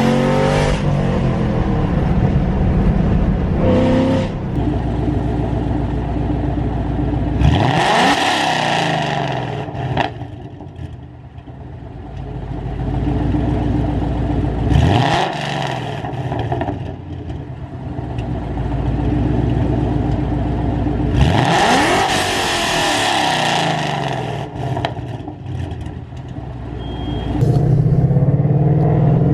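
Ford Mustang GT V8 with long-tube headers, an off-road X-pipe and Corsa Extreme exhaust, running loud and being revved. The pitch shoots up sharply three times, about a quarter, half and three-quarters of the way through.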